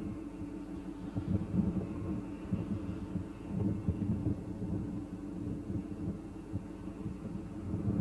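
Low, uneven throbbing rumble of a large mining haul truck's diesel engine as the truck drives.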